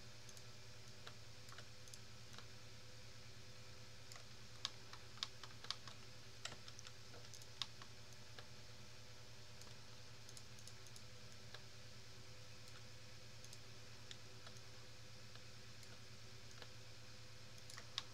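Scattered computer keyboard and mouse clicks, a cluster of them a few seconds in and one more near the end, over a steady low hum.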